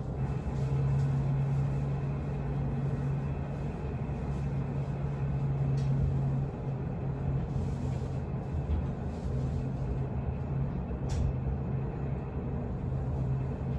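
Cabin sound of a Chuo Line commuter train standing at a station: a steady low hum from the train's onboard equipment. There is a single short click about eleven seconds in.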